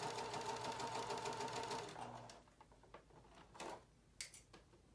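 Pfaff electric sewing machine running at a steady speed, then stopping a little over two seconds in. A few faint clicks and rustles of fabric handling follow.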